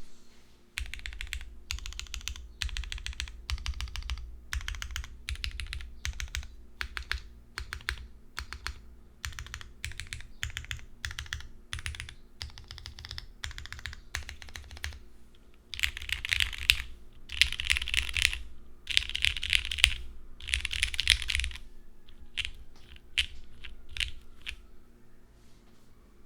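Typing on a mechanical keyboard with an aluminium case and half aluminium plate, lubed Cherry MX Black linear switches and CRP keycaps: steady runs of keystroke clacks. Around two-thirds of the way through come four louder, denser bursts of typing, and near the end the strokes thin out to scattered keypresses.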